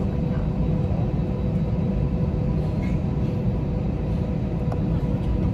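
Steady low rumble of cabin noise aboard an Airbus A321, with a faint steady hum over it.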